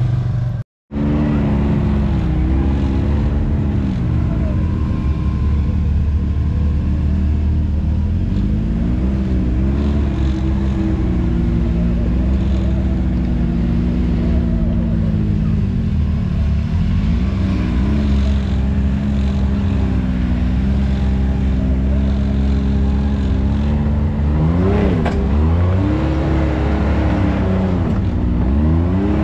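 Side-by-side UTV engine running under way, holding a steady note that rises and falls in pitch now and then as the throttle is worked, with the biggest swells near the end. The sound cuts out briefly just under a second in.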